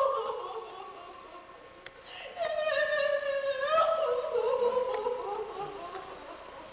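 A high, wordless voice drawing out sliding notes: one falling note at the start, then a longer note from about two and a half seconds in that slides slowly downward and fades.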